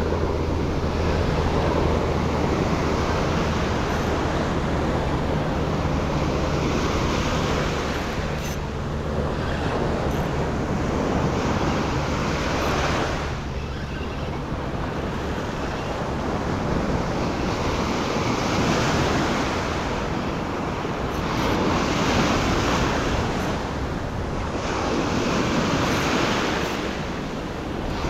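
Ocean surf breaking and washing up a sandy beach, its rush swelling and ebbing in repeated waves every few seconds.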